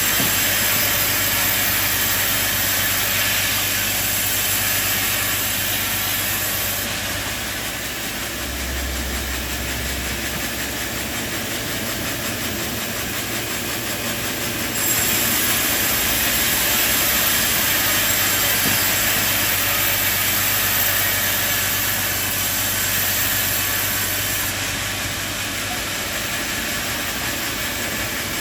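Sawmill machinery running steadily, a loud mechanical noise with a high hiss and a low hum. It eases slightly about seven seconds in, rises again about halfway through, and eases once more near the end.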